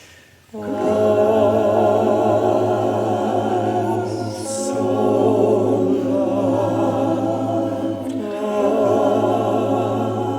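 A choir singing in harmony, several voices with vibrato over a steady low held note. A new phrase starts about half a second in, after a brief pause.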